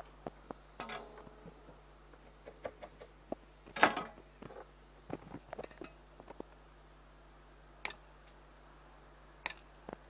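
Small flush cutters snipping component leads on a circuit board, with the board handled in its holder: irregular sharp clicks and small knocks, the loudest about four seconds in.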